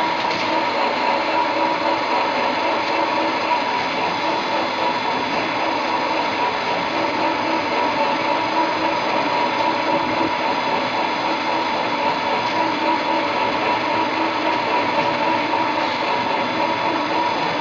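Fan flanging machine running, its rollers turning a round sheet-metal fan casing to form the flange: a steady mechanical noise with a constant whine.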